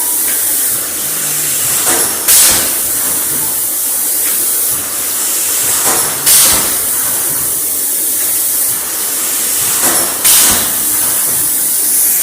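Mineral-water production machine running with a steady hiss, broken about every four seconds by a click and a louder burst of hissing as it cycles.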